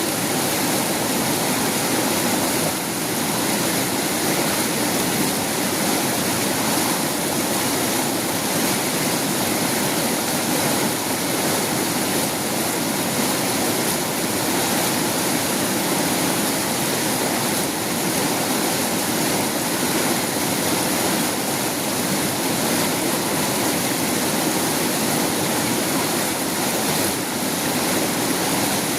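Fast-flowing river water rushing steadily, an even noise with no breaks.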